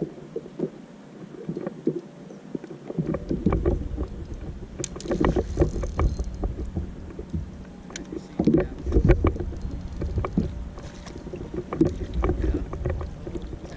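Irregular knocks, clunks and small rattles of gear moving about in a small fishing boat, with a low rumble that comes in about three seconds in.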